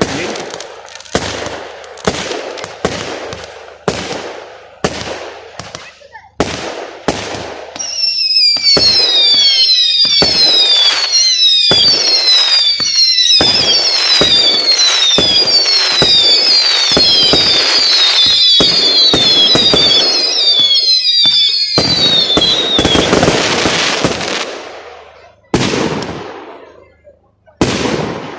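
Fireworks display: a quick series of sharp shell bursts, then a long, loud barrage of whistling fireworks, many falling whistles overlapping over crackling. It fades out, and two last bangs come near the end.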